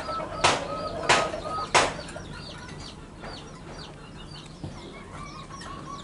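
Zebra dove (perkutut) calling on its perch: in the first two seconds three loud sharp notes about two-thirds of a second apart over a low broken coo, then quieter. Small birds chirp faintly throughout, and a quick run of short high notes repeats near the end.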